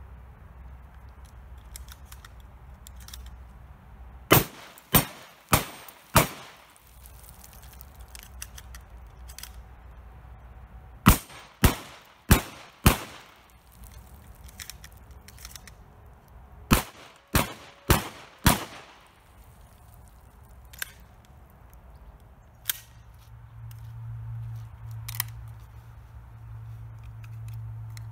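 Shotgun firing at steel plates in three quick strings of four shots, the shots a little over half a second apart within each string. Faint clicks of gun handling come between the strings.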